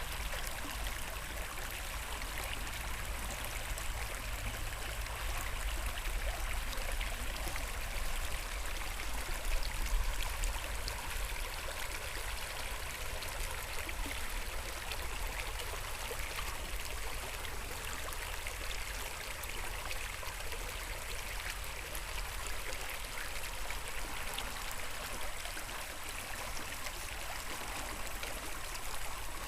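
River water flowing steadily, a continuous rushing hiss, with a low rumble underneath that eases off about two-thirds of the way through.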